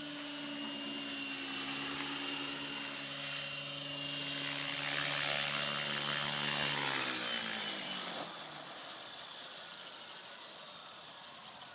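Electric T550 RC helicopter running, its rotor hum and high motor whine steady while it flies in and lands. About seven seconds in the rotor spools down, the pitch falling and the sound fading.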